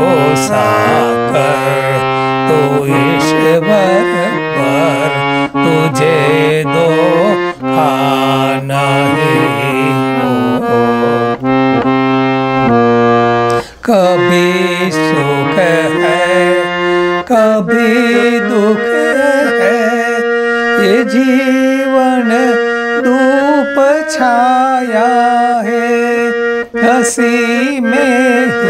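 Harmonium playing a bhajan melody in sustained, reedy chords. The notes change steadily, with a brief break about halfway through.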